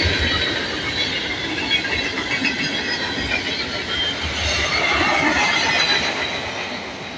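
Freight cars of a fast Norfolk Southern train rolling past on steel rails: a steady rumble with the wheels squealing against the rail and clacking over joints. The last cars pass, ending with the caboose, and the sound fades near the end.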